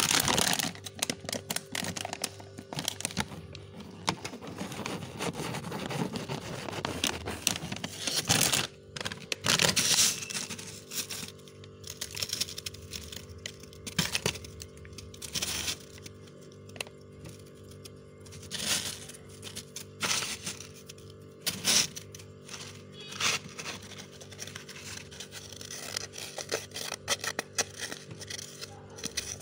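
Powdery freezer frost crunching and crackling as it is scraped and scooped with a spoon and squeezed in the hand: many short crisp crunches, the loudest about nine to ten seconds in, over steady background music.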